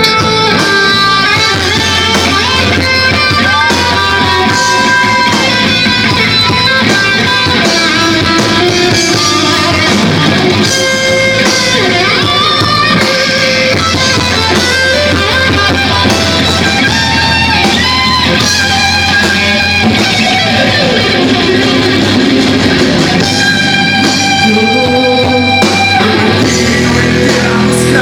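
Rock band playing live, led by electric guitar with gliding, bent notes over strummed guitar and drums.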